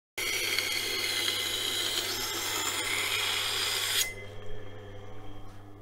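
Steel knife blade grinding against the turning wheel of a Tormek wet sharpening machine, a steady scratchy rasp over the machine's low motor hum. The grinding stops abruptly about four seconds in as the blade is lifted off, while the motor keeps humming.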